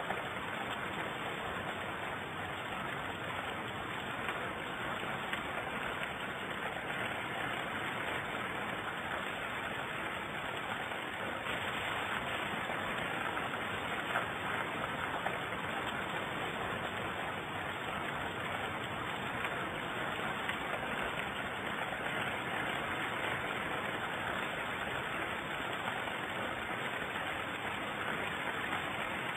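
Heavy rain falling, a steady hiss of a torrential downpour.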